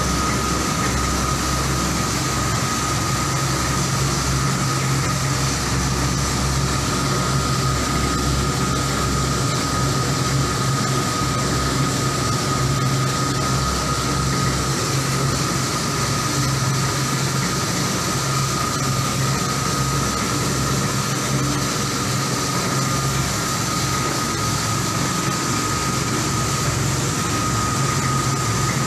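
Commercial coffee roaster running: its motors and fans give a steady mechanical whir with a constant high-pitched tone and a low hum, while the stirring arms turn the beans in the cooling tray.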